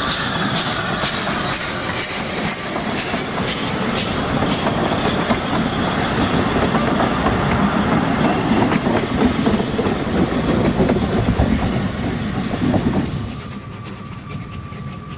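Narrow-gauge steam locomotive passing close, its exhaust beats coming regularly at first with steam hissing, followed by the rumble and rhythmic clicking of coach wheels over the rail joints. About thirteen seconds in, the sound drops suddenly to a much fainter, distant train sound with a faint steady tone.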